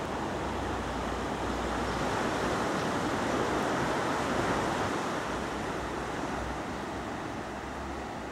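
Steady rush of ocean surf washing over a rocky shore, with a low wind rumble on the microphone that comes and goes.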